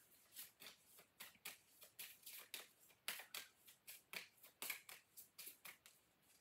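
A deck of rune cards being shuffled by hand: faint, quick flicks and taps of the cards, about four a second.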